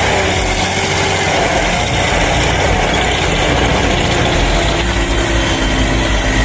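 Heavy logging vehicle's diesel engine running steadily and loudly under load as it strains to pull a stuck log truck free.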